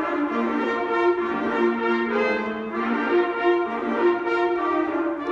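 Concert band playing, brass and woodwinds together, moving through held chords that change every half second to a second.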